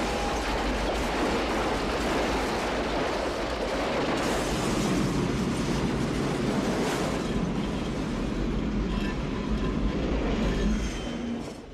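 Loud, continuous rumble and clatter of a train passing at speed, dying away sharply near the end.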